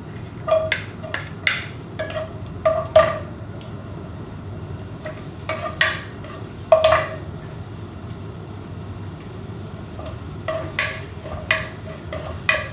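A cooking spoon knocking against the rim of a pot and a plate as ingredients are scraped into the pot. The taps come in several short clusters, each with a brief ringing tone.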